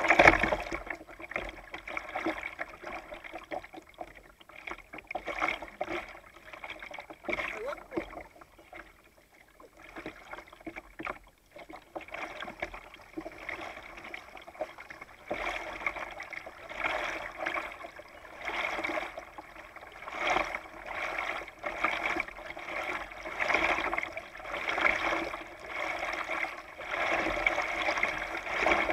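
Kayak paddling: double-bladed paddle strokes dipping and splashing in calm river water, with water lapping against the plastic hull, about once a second. The strokes ease off in a quieter spell about a third of the way in.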